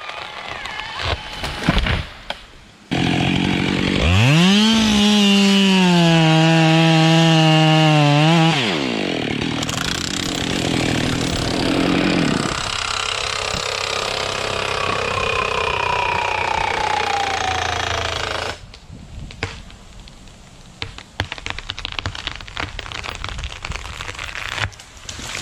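Chainsaw revving up to full throttle about four seconds in, holding a steady high note for a few seconds, then dropping in pitch as it cuts into wood. The sawing goes on more quietly until it stops abruptly near the end.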